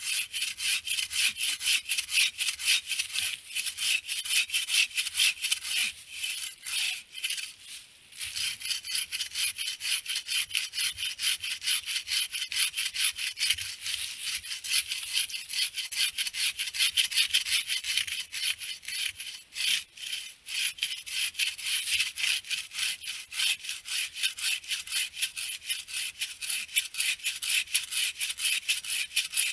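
Bow saw cutting through a fallen dead log in a quick, steady rhythm of back-and-forth strokes, pausing briefly twice.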